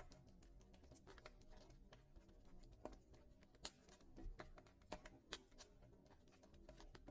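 Wood fire crackling in a fireplace: faint, irregular little snaps and pops, with a few louder pops about halfway through.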